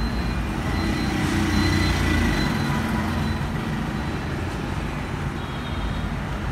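Steady background noise with a low rumble, unchanged throughout; the sewing machine is not running.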